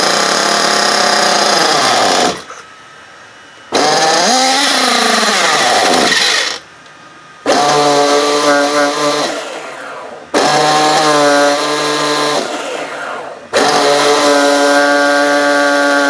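Team Associated AE Pro .28 nitro engine being spun by an electric bump-box starter in repeated bursts of a few seconds with short pauses, without starting; the glow igniter has gone flat.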